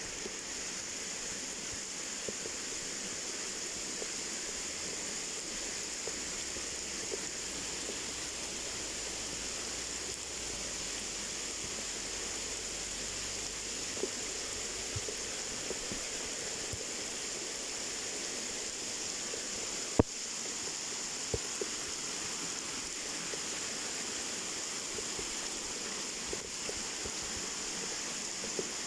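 Waterfall: falling water rushing steadily, with a few brief clicks, the sharpest about twenty seconds in.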